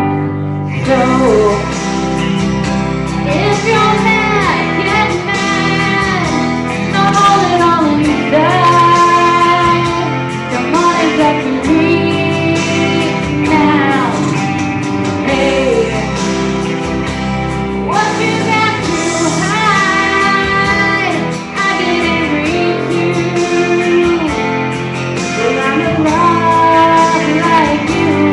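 A woman singing a song over loud instrumental accompaniment with guitar.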